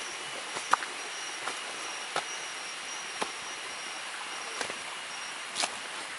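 Footsteps crunching on dry leaf litter, a sharp crackle about once a second, over a steady high insect drone that stops near the end.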